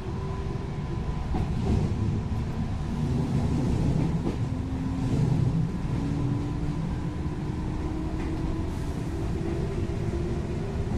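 JR 221 series electric train running, heard on board: rumble from the wheels and rails with a motor and gear hum that climbs slowly in pitch as the train gains speed.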